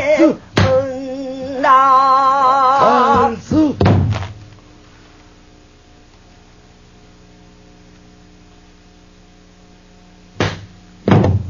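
A female pansori singer holds sung notes with a wide, slow vibrato, stopping about four seconds in. A buk barrel drum is struck once early on and twice near the end. Between them only a faint steady hum is left.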